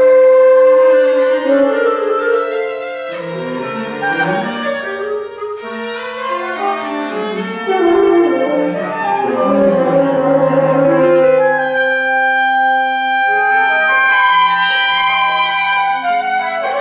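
Contemporary classical chamber ensemble of bowed strings and winds playing, with overlapping held notes that change every few seconds.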